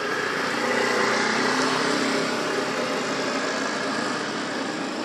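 A small engine running, growing louder about a second in and then slowly fading.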